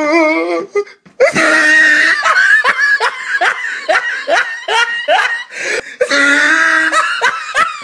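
A person laughing hard in a rapid run of short bursts, about two a second, breaking into a longer held cry near the end.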